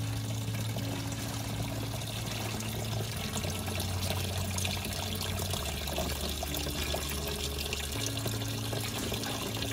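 Water pouring in a steady stream from a cut-open PVC radon vent pipe and splashing into a partly filled plastic bucket, as water trapped in the badly pitched, waterlogged pipe is drained.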